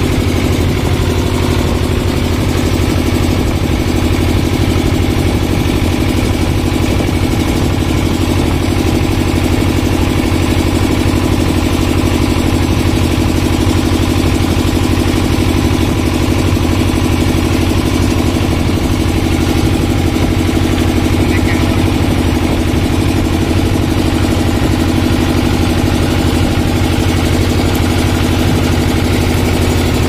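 A boat's engine running steadily at an even speed, with no change in pitch or loudness.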